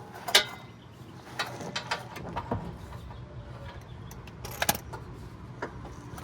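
Scattered metal clicks and clanks of hand tools on a car's suspension as a socket extension is worked by hand: a sharp knock about half a second in, a few light ticks, and a louder pair of clicks near the end.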